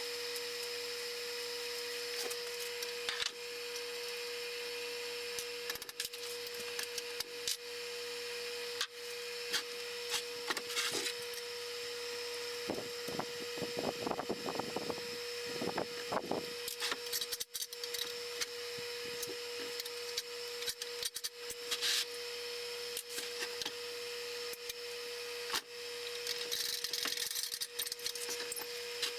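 Scraping, clicks and knocks of hand work on a small band saw's parts during disassembly, over a steady hum. The scraping is densest about halfway through.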